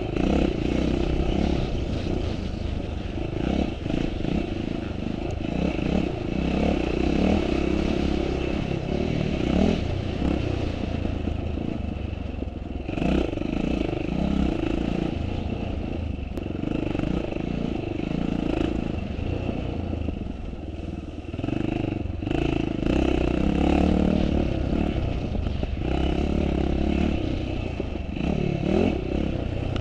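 Motocross motorcycle engine of the twin-shock era under hard riding, revving up and dropping back again and again as the throttle is opened and closed.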